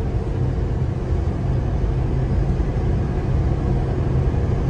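Semi-truck's engine and tyres running at highway speed, heard from inside the cab as a steady low rumble with a faint steady hum above it.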